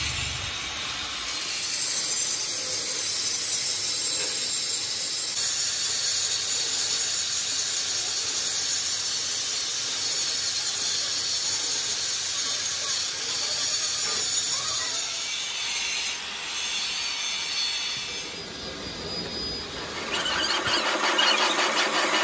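Handheld angle grinder grinding the broken end of a steel worm shaft: a steady, high-pitched grinding. About two seconds before the end it gives way to a louder, rapidly pulsing sound as the shaft spins in a lathe.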